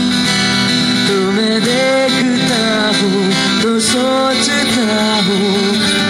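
Acoustic guitar played live with a man singing a wavering melody line into a microphone, amplified through a PA.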